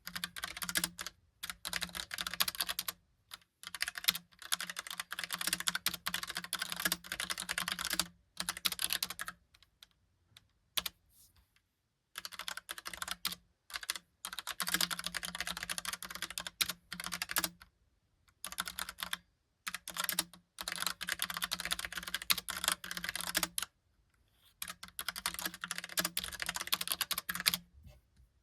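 Logitech POP Keys mechanical keyboard being typed on in rapid runs of clacking keystrokes. The runs are broken by brief pauses and by one longer lull of a couple of seconds about ten seconds in, with only a few single key clicks.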